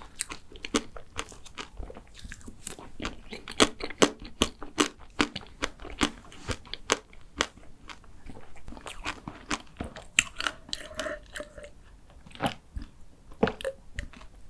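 Close-miked chewing of a chewy chocolate macaron, with many sharp crunching clicks, several a second, and wet mouth sounds between.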